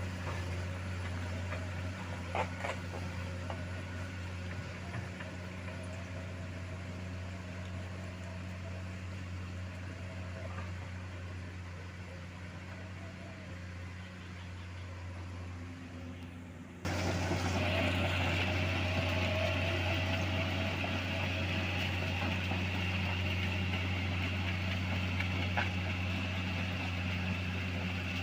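Heavy diesel machinery running steadily with a low, even hum. About 17 seconds in, it turns abruptly louder, adding a steady higher whine.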